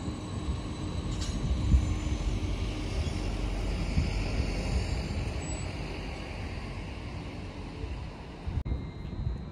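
Greater Anglia electric multiple unit moving slowly past the platform: a steady low rumble of wheels on the rails, with a faint hum in the first couple of seconds.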